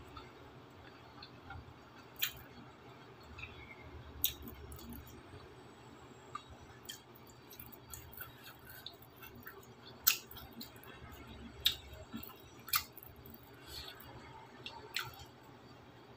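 Quiet sounds of a person eating with her fingers: soft chewing with a few scattered sharp clicks and smacks, the loudest about ten seconds in, over a low steady hum.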